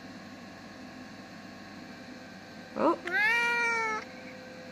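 Domestic cat meowing: low room tone, then about three seconds in a short rising chirp followed by one drawn-out meow of about a second.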